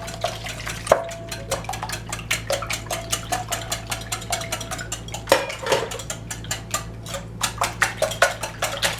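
A utensil beating eggs and warm milk together in a mixing bowl, clicking against the bowl with quick, even strokes several times a second.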